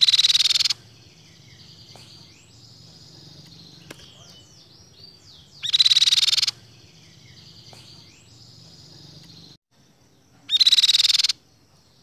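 Crescent-chested babbler singing: three loud, harsh rattling phrases, each under a second and about five seconds apart, with softer chirps between them.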